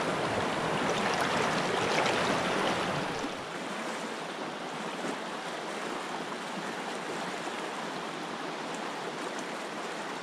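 Small mountain stream running over rocks, a steady rush of water that is louder for the first three seconds and then drops to a softer, even flow.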